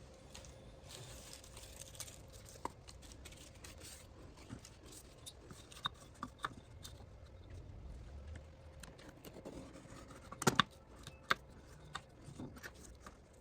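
Paper birch bark being worked by hand into veneer strips: scattered small dry clicks and crackles, with a louder cluster of sharp snaps about ten and a half seconds in.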